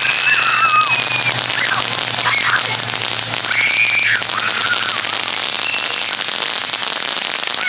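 Ground fountain firework spraying sparks: a steady crackling hiss, with a few short whistles over it.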